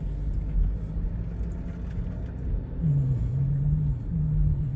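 Low rumble of a car driving, heard from inside the cabin, with a steady engine hum that drops in pitch and rises again about three seconds in.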